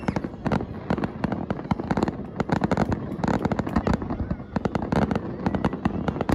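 Fireworks going off in a dense, continuous barrage of rapid bangs and crackling pops, many per second.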